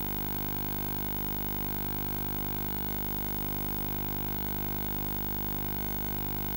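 Steady electrical hum with hiss, unchanging, with no sound of the game itself.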